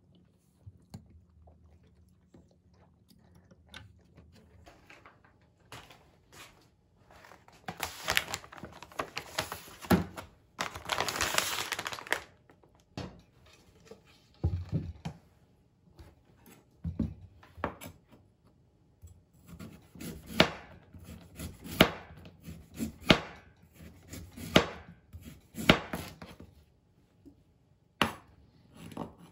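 Kitchen knife cutting an onion on a wooden cutting board: separate sharp knocks of the blade on the board, about one every second and a half, in the second half. Before that, a stretch of rustling and tearing noise from food preparation.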